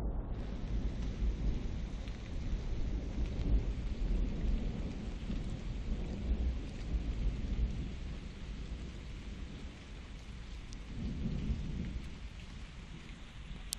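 Rolling thunder over steady rain hiss. The rumble eases after about eight seconds and swells again briefly near the end.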